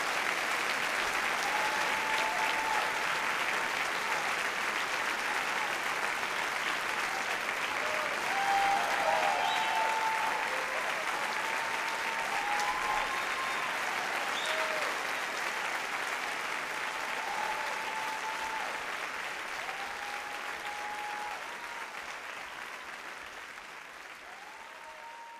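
Audience applauding steadily, with a few voices calling out over the clapping; the applause fades out over the last few seconds.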